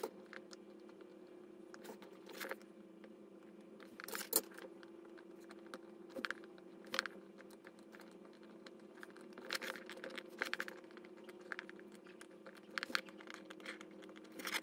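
Faint scattered clicks and scrapes of metal tweezers and a soldering iron tip on a small circuit board as surface-mount parts are hand-soldered, the sharpest click about four seconds in. A steady low hum runs underneath.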